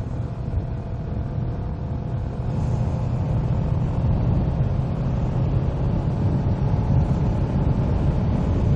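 Motorcycle running under way, a steady low engine and road rumble that gets gradually louder over the first few seconds.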